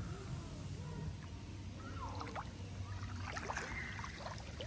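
Inflatable boat on a river: a low steady hum throughout, with a cluster of short bird chirps in the middle.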